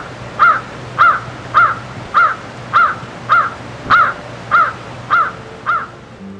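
An animal, most likely a bird, calling over and over in a steady series, about two short rising-and-falling cries a second; the calls stop near the end.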